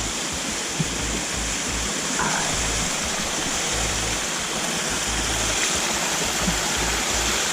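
Steady rush of a steep mountain creek pouring over rock falls and plunge pools.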